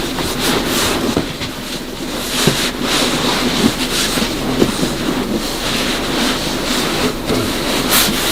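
Rustling and irregular knocks, roughly one or two a second, over steady noise: a recorder carried by someone walking, with clothing and bags rubbing against it.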